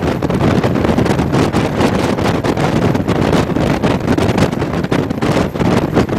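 Wind buffeting hard on the microphone beside an Irish Rail 071 class diesel-electric locomotive running at speed, with the locomotive and train rumbling underneath.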